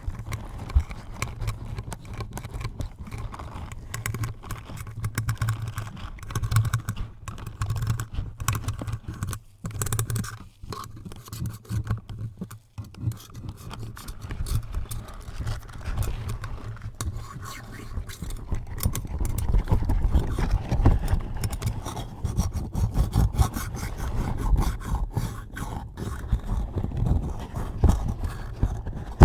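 Scratching and rubbing directly on a microphone, close up: dense, irregular crackly strokes over a low handling rumble, thinning out briefly near the middle.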